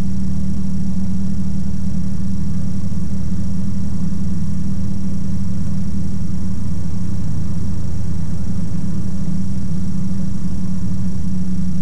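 Ikarus C42 microlight's Rotax 912 flat-four engine and propeller droning steadily in flight, holding one even pitch throughout.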